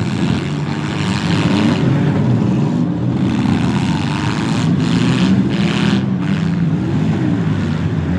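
Several front-wheel-drive demolition derby cars' engines running and revving together, their pitch wavering up and down. There are a few louder hissy bursts about halfway through.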